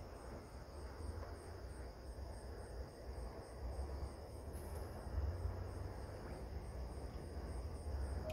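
Night insects chirping steadily, a high, evenly pulsing trill, over a low rumble.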